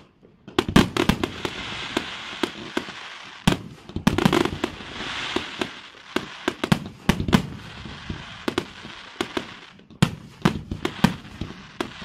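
Fireworks display: aerial shells bursting in a rapid, irregular string of sharp bangs, with a crackling hiss between them and a short lull about ten seconds in.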